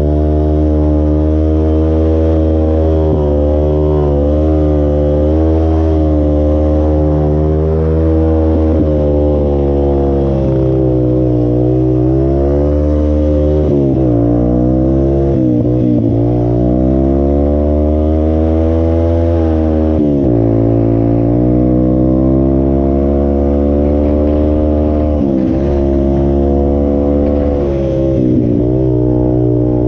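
Off-road vehicle engine running under a rider's changing throttle, its pitch rising and falling, with several brief sharp drops where the throttle is let off, around the middle and again later.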